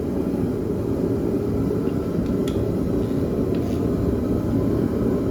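Steady low drone of a forced-air shop heater running, with a few faint light clicks of metal near the middle.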